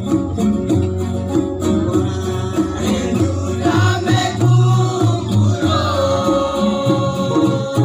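A live string band plays with acoustic guitars strumming a steady beat over a plucked bass line, and several voices sing along.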